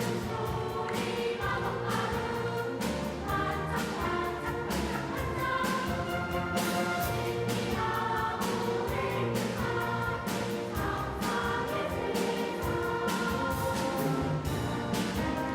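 Children's choir singing with an orchestra accompanying.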